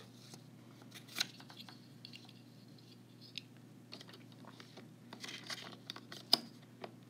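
Faint rustling and clicking of handling noises as something is switched over, with a sharp click about a second in and another near the end, over a steady low hum.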